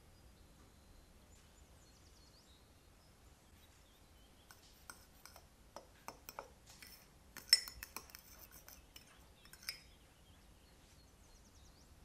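Metal fork stirring dry flour, sugar and cocoa powder in a ceramic mug, scraping and clinking against the mug. The clinks start about four seconds in and run for about five seconds, with the sharpest one a little past the middle.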